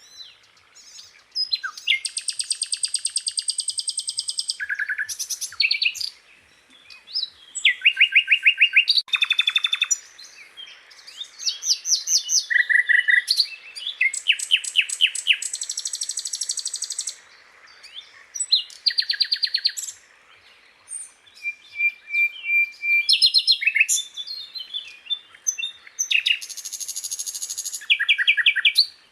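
Sikatan londo, a small flycatcher kept as a songbird in Indonesia, singing a varied song of rapid trills and rattling notes. Phrases of one to two seconds come at changing pitches, high and low, with short pauses between them.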